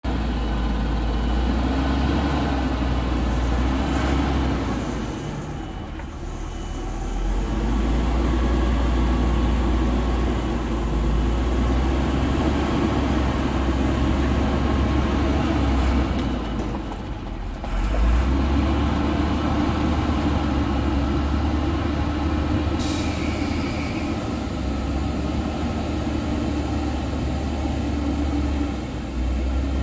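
Diesel engine of a 12-metre Yutong bus running as the bus moves slowly, a steady low rumble that eases off twice and picks up again. A short hiss of air comes about two-thirds of the way through.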